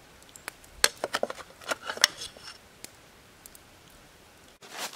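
A metal ladle scraping and clinking against a cooking pot as chunks of stewed vegetables and sausage are spooned into a plastic bowl: a run of short clicks and scrapes over the first three seconds, then a brief rustle near the end.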